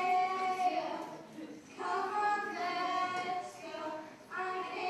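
Children's voices singing a song, in phrases of long held notes separated by short breaths.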